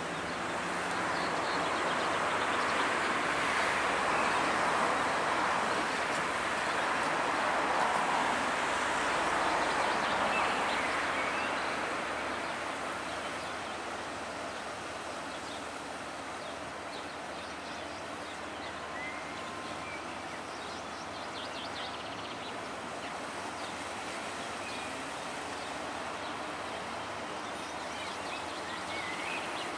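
Steady outdoor noise that swells over the first ten seconds or so and then eases to a lower, even level, with a few faint bird chirps in the second half.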